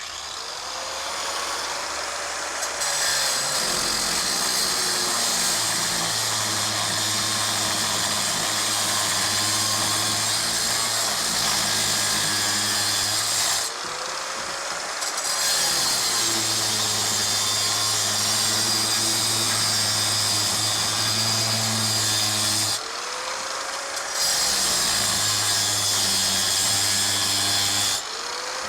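Power saw cutting into an electric motor in three long runs, easing off briefly between them.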